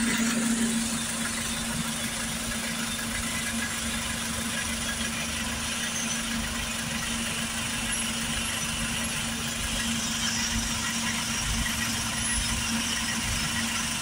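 Kia Bongo III truck's engine idling, a steady even hum, heard from beneath the truck.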